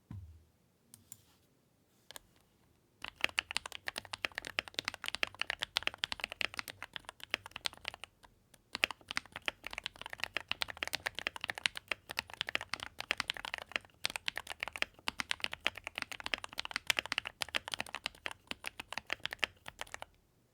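Typing on a Keychron mechanical keyboard: a few separate keystrokes at first, then about three seconds in, fast continuous typing with rapid key clicks, pausing briefly twice.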